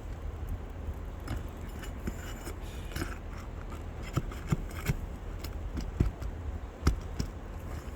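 Metal hand tools scraping and clinking against asphalt shingles and roofing nails while shingles are pried up. There are a few sharp knocks in the second half, over a steady low rumble.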